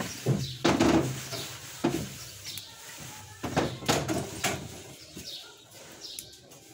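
Okra pods rustling and knocking against one another and the plastic basket as a hand picks through them, in irregular handfuls, loudest about a second in.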